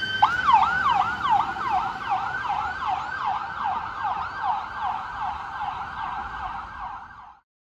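Electronic emergency-vehicle siren in a fast yelp, about three falling sweeps a second, growing fainter as it goes, then cutting off suddenly near the end.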